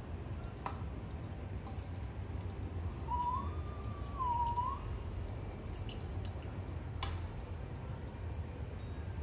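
Scattered high chiming tones ringing one after another, with a short wavering whistle-like tone about three seconds in, over a steady low rumble.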